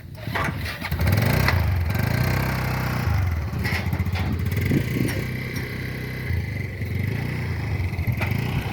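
A small engine comes up about a second in and runs steadily.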